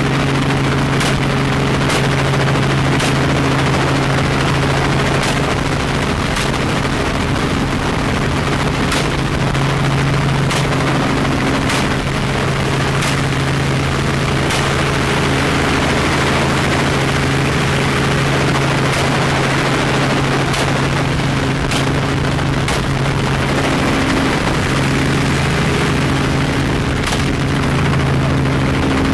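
Helicopter engine and rotor drone, with semi-automatic AR-style rifle shots fired one at a time from the aircraft, mostly about a second apart with a few longer pauses.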